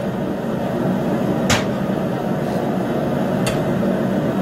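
A forge burning with a steady rushing noise while bar stock heats for twisting. Two sharp metallic clicks come about two seconds apart.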